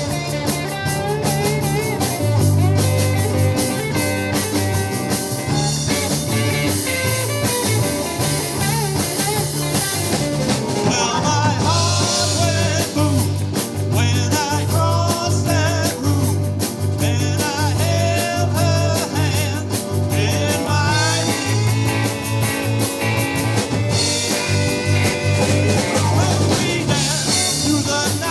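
Live rock band playing an early-1960s rock-and-roll song: guitar, a pulsing bass line and drum kit, with singing in places.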